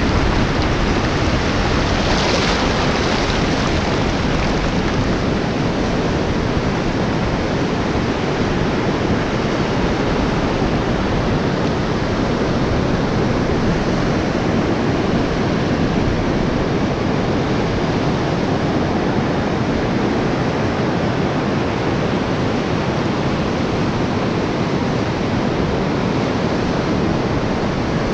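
Ocean surf breaking on a sandy beach, a steady rush of noise with wind buffeting the microphone. The rush turns briefly brighter and hissier about two seconds in.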